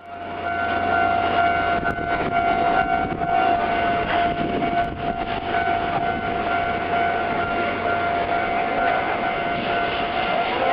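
Japanese railway level crossing's electronic warning bell ringing steadily, over the running noise of a train.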